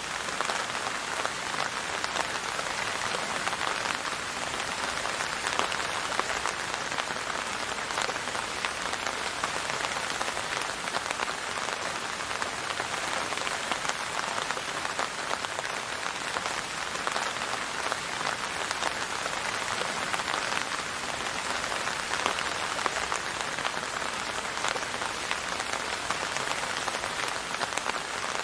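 Steady rain falling on a surface, a dense even patter of many small drops.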